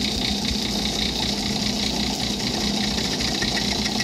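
South Bend lathe running with a 5/8 in two-flute end mill turning in its chuck, milling a 45° V into a metal part clamped to an angle plate on the cross slide. A steady, even machine sound with a faint rapid ticking from the cut.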